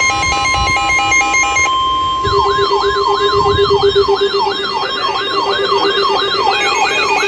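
Electronic emergency alert tones: a steady high alert tone throughout, over fast alternating warbling tones for the first couple of seconds. Then, from about two seconds in, a siren tone yelping up and down about two and a half times a second over a steady pulsing lower tone.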